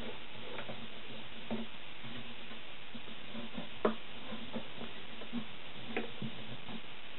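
Wood screw being driven by hand with a screwdriver into a wooden board: a string of small creaks and clicks as the screw turns, with a sharper click about four seconds in, over a steady hiss.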